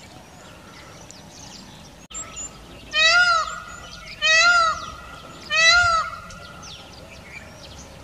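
Indian peafowl calling three times, loud calls about a second and a half apart, each rising then falling in pitch.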